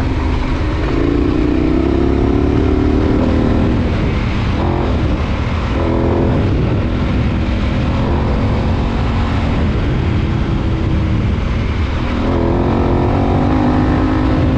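KTM 1090 Adventure's V-twin engine accelerating hard through the gears. Its pitch climbs, breaks at shifts around the middle, and climbs again near the end.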